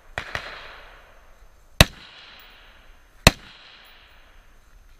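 Four gunshots: a quick pair near the start, each with a long echoing tail, then two sharper, louder single shots about a second and a half apart.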